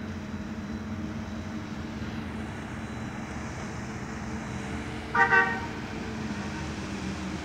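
One short horn blast from a pleasure boat passing through the drawbridge, about five seconds in, over a steady low drone.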